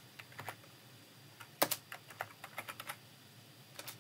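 Typing on a computer keyboard: irregular runs of keystrokes with short pauses between them, the sharpest stroke about one and a half seconds in.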